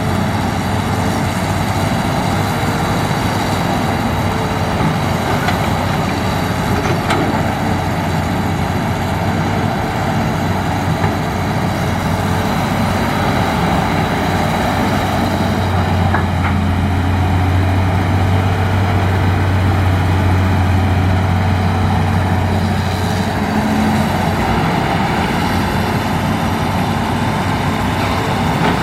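Hitachi hydraulic excavator's diesel engine running steadily, its low drone growing heavier for several seconds about halfway through, with a few faint knocks.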